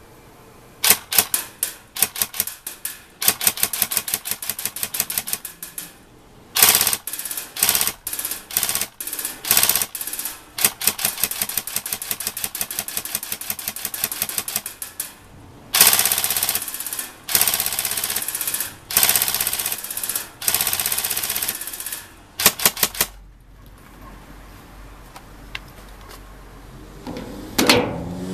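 BOLT M4 SOPMOD airsoft electric gun firing: a few single shots, then repeated full-auto bursts of rapid clicks, some short and some several seconds long. Firing stops about 23 s in, and a short whirring scrape follows near the end.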